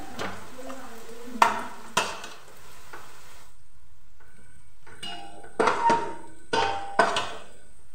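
Sliced onions fried golden sizzling in oil in a stainless-steel pot while a steel ladle stirs and scoops them, clinking against the pot. The sizzle stops abruptly about halfway through, and then the ladle knocks against the pot with ringing clinks in two quick clusters.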